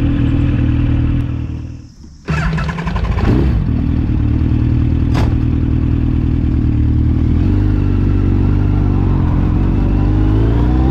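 Yamaha FJ1200's air-cooled inline-four engine running under way. The sound drops out briefly about two seconds in, then the engine carries on steadily, and near the end its pitch climbs as it accelerates.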